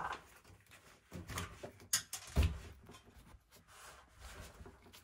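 Sheathed electrical cables being handled and pulled through a hole in a wall: a few light rustles and knocks, the sharpest about two seconds in.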